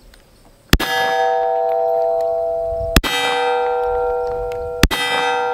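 Three shots from a Smith & Wesson M&P 22 Magnum pistol, about two seconds apart, each hitting a steel plate target that rings with a clear, bell-like tone until the next shot.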